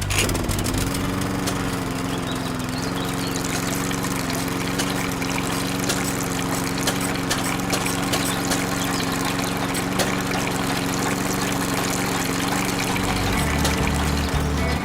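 Small electric motor running steadily; its hum dips and then settles just after the start, over a continuous hiss of liquid pouring and splashing, as from a toy pump moving juice.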